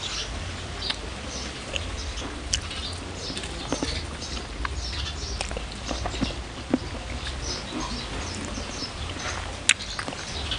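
Close-miked chewing of a mouthful of khanom chin rice noodles with coconut chicken-feet curry: many small wet mouth clicks and smacks, with one sharper click near the end, over a steady low rumble.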